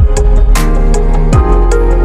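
Background music with a steady beat: deep drum hits that drop in pitch and bright cymbal-like hits over held chords.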